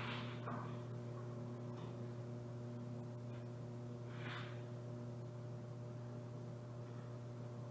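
Steady low electrical hum, with two brief soft puffs of noise, one at the very start and one about four seconds in.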